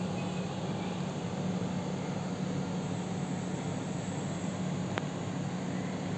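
Outdoor unit of a newly installed Mitsubishi Heavy Industries 2.2-ton split air conditioner running: a steady low hum from the compressor and condenser fan, with even air noise over it, and one faint click about five seconds in.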